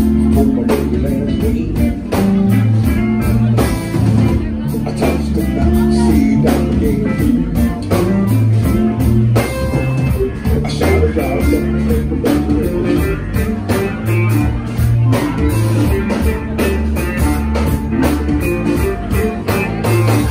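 Live band playing a blues-rock song: electric guitar, drum kit and keyboard over a steady drum beat, heard from within the audience.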